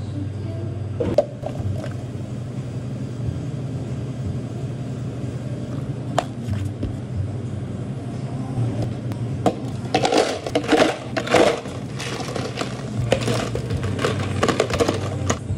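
Barista handling cafe ware behind the counter over a steady low hum of equipment: a few single knocks, then bursts of clinking and clattering about two-thirds of the way in and again near the end.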